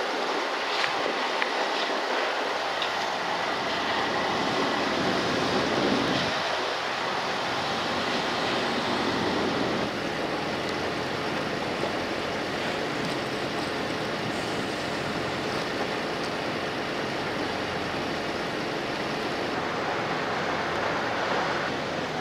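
Steady outdoor harbour noise: a constant rushing hiss with a low, even mechanical hum underneath, and no distinct events.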